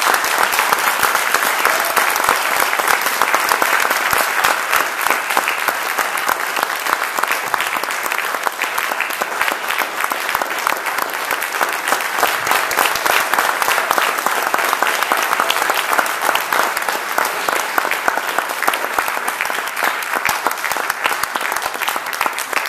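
Audience applauding: a long, steady round of clapping that eases slightly near the end.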